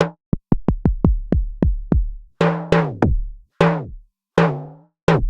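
Drum pattern from a drum-resynthesis plugin: a quick run of short hits with deep low tails, then slower pitched hits whose tone falls as each one dies away. The pitched hits are a resynthesized vocal sample morphed toward a timbale.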